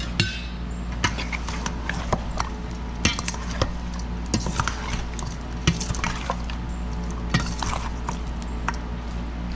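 Irregular clinks, knocks and scrapes of kitchen utensils and a bowl as raw chicken is mixed with seasoning, over a steady low hum.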